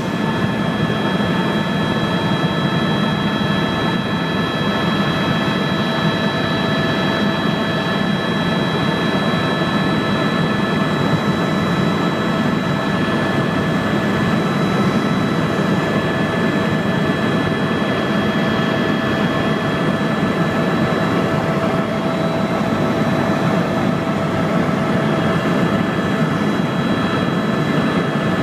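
Tour helicopter's turbine engine and rotor running steadily in flight, a constant rumble with a high, even turbine whine over it.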